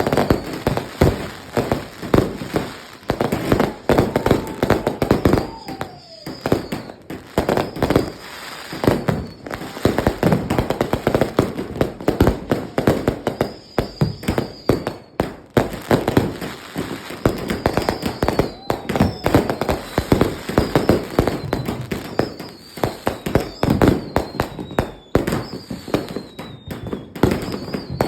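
A dense, continuous barrage of fireworks going off from a fused finale board: many overlapping bangs and crackles with no break. Several high whistles fall in pitch over it, more of them in the second half, and a lower falling whistle comes a few seconds in.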